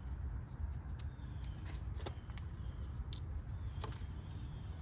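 Light, scattered clicks and taps of hands working at the front brake caliper bracket while greasing its contact points, over a low steady background rumble.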